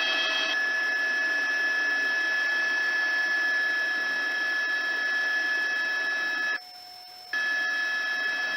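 Helicopter cabin noise heard through the aircraft's intercom or radio audio: a steady hiss with a high, steady whine. It cuts out briefly about seven seconds in, then returns.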